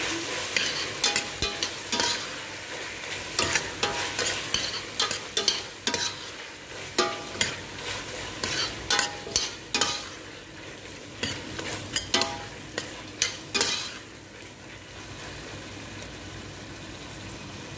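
Metal spoon stirring and scraping against a stainless steel pot of tomatoes and curry paste frying in oil, with quick clicks and short metallic rings over a sizzle. The stirring stops about 14 seconds in, leaving only the steady sizzle.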